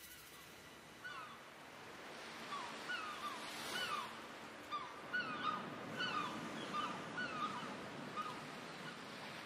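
Gulls calling: a string of short, down-slurred calls, often in quick pairs, starting about a second in, over a faint background wash of water.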